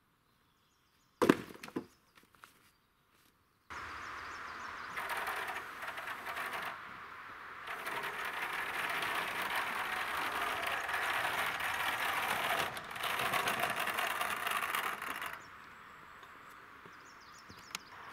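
Sawn lumber being handled: a sharp wooden knock about a second in, then a long stretch of rough, uneven noise that starts and stops abruptly.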